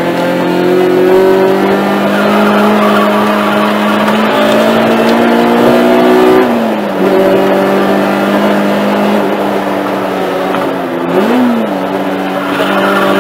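Honda track car's engine heard from inside the cabin under hard acceleration, its note climbing steadily. The pitch drops and picks up again about six seconds in, and there is a short rev blip about eleven seconds in.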